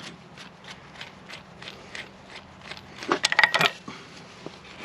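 Hand ratchet wrench clicking as it is worked, about three clicks a second, with a louder clatter of metal clicks a little after three seconds in.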